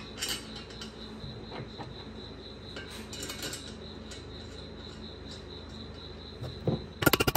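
Light metal clinks and taps as the steering knuckle, hub and brake rotor parts are handled, over a faint steady high whine. Near the end a loud, rapid rattle of clicks begins.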